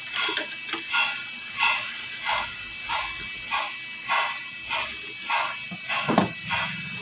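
A dog barking over and over, about three barks every two seconds, with the loudest bark about six seconds in.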